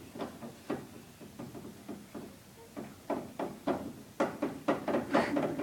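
A run of light, irregular knocks and taps, like things being handled and bumped about, growing busier near the end.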